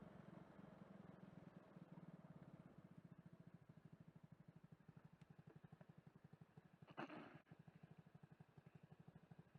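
Faint engine idling with a steady, rapid low pulse, and a brief louder noise about seven seconds in.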